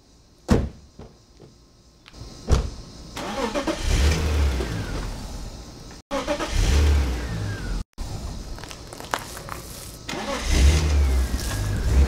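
A car hood slammed shut about half a second in, a second knock about two seconds later, then the 1997 BMW M3's 3.2-litre straight-six running, its engine speed rising and falling several times, cut off abruptly twice.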